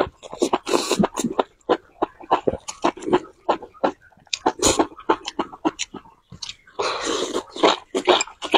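A person chewing and slurping food close to the microphone: a quick, irregular run of wet mouth noises and short smacks, with a couple of longer slurps.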